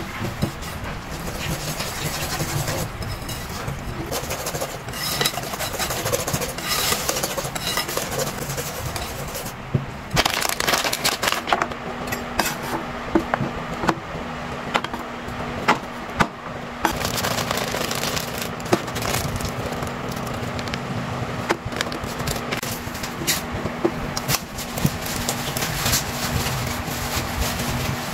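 A wire whisk scraping and stirring dry flour in a ceramic bowl. About ten seconds in, it gives way to a knife chopping on a plastic cutting board in sharp, irregular taps, with a steady low hum underneath.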